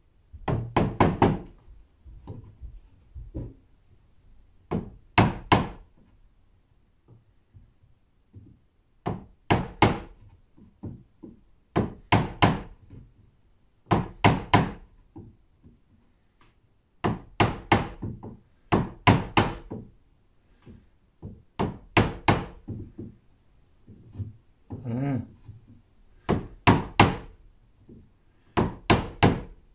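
Claw hammer striking a wood chisel, chopping a row of cuts into the edge of a pine door. The sharp knocks come in quick groups of three to five, about every two seconds.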